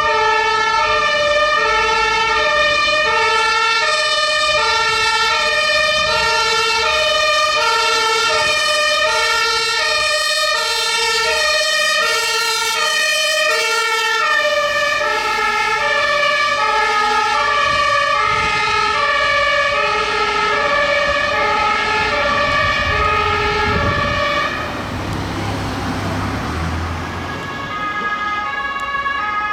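German two-tone emergency vehicle siren (Martinshorn) alternating between a high and a low note, about two-thirds of a second each, with a second siren overlapping partway through. Near the end the sirens drop out briefly under a low vehicle rumble, then a two-tone siren starts again.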